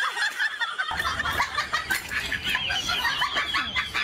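Birds calling: many short, rapid, overlapping chirps and clucks.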